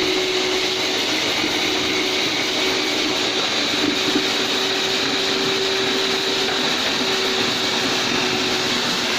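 FVC-80-3M commercial wet and dry vacuum cleaner running steadily, a constant motor whine over rushing air.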